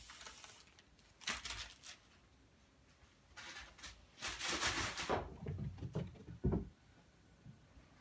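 Cats scuffling through crumpled paper: several bursts of rustling and scraping, then a dull thump about six and a half seconds in.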